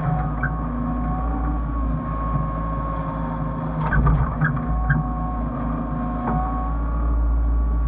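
Hyundai excavator's diesel engine running steadily under work, with a steady high whine over the engine hum. There are a few short knocks about four to five seconds in and another past six seconds.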